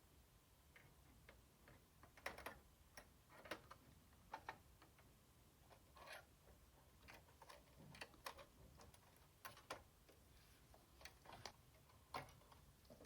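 Faint, irregular light clicks and taps, about a dozen spread unevenly, from small tools and plastic or metal console parts being handled during thermal paste work.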